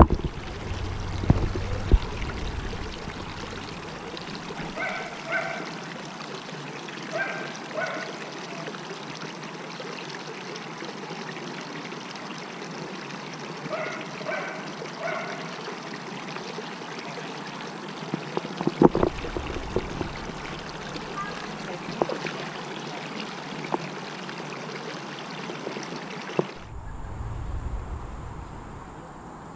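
Water pouring steadily from an inflow pipe into a concrete exhibit pool, a constant splashing trickle that cuts off near the end. A few short chirps in pairs sound over it.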